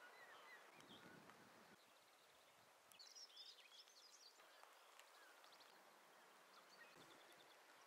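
Faint outdoor birdsong: short chirps and twitters over a low, even background, with a busier spell of quick chirping about three seconds in.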